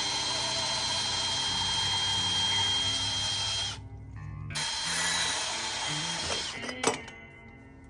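A handheld power tool running in two bursts, one of about four seconds and a second of about two seconds after a brief stop, with a steady high whine. A sharp click comes near the end.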